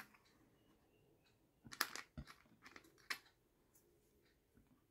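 Near silence broken by a few faint clicks and taps as the rifle's parts are handled: a cluster about two seconds in and two more around three seconds in.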